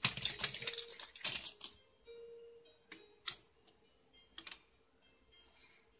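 Hard plastic fishing-toy pieces clattering for about a second and a half as the caught plastic lobster is put into the plastic basket, then a few separate clicks of the toy rod's plastic hook. Faint background music runs underneath.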